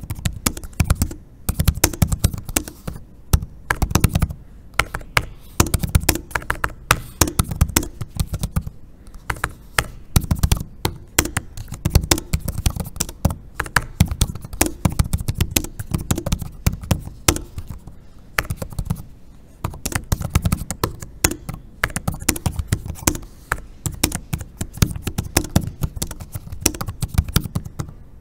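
Fast typing on an HP Elite Folio 2-in-1 laptop keyboard: a continuous, uneven stream of key taps with a deep tone and very little click or clack. The microphone sits just above the keys, so the taps sound louder than they would from a short distance.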